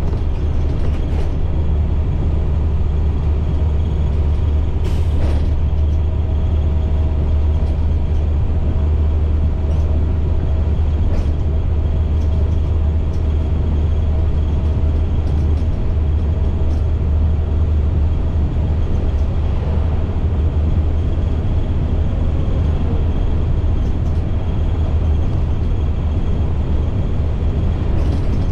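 A school bus's MaxxForce DT inline-six diesel engine running with a steady low drone and a few brief rattles.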